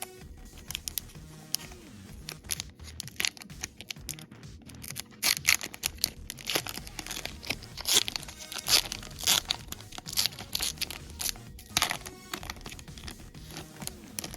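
Foil trading-card booster pack being torn open and crinkled: a long run of sharp crackles and rips, loudest in the middle.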